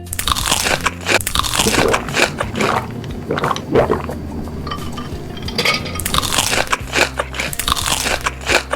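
Close-miked crunching and chewing of crisp food, in two stretches of dense bites with a softer lull between them, over steady background music.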